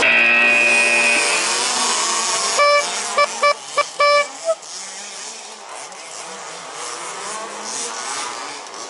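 Race timing system's start signal: a string of five or six short electronic beeps at one pitch about three seconds in, the last one longer. Before it comes a loud steady pitched whine in the first second, and after it the remote-control buggies run quietly.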